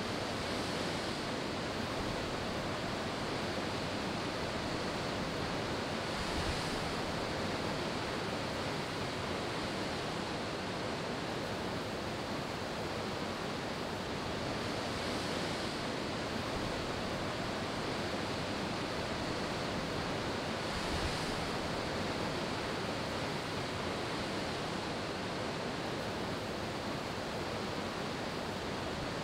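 Steady rush of ocean surf breaking over a reef, with a few brief surges along the way.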